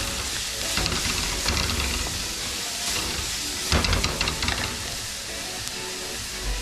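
Chopped onion, scallions and herbs sizzling in oil in a metal pot while a wooden spoon stirs and scrapes them across the pot bottom. The scraping comes in bursts, loudest a little past the middle.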